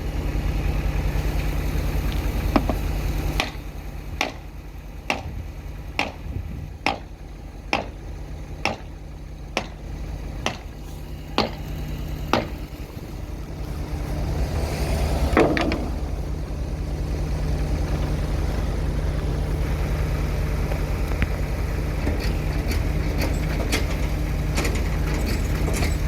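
A vehicle engine idling steadily, with a run of about ten sharp clicks roughly one a second, then a louder drawn-out scrape or creak about fifteen seconds in.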